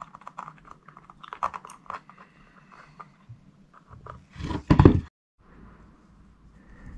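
Close handling noise: small clicks and crackles as a Bosch cordless hot glue gun's nozzle dabs glue onto a steel bolt's threads, then one loud thump about four and a half seconds in. Faint rubbing follows as a nut is turned onto the bolt by hand.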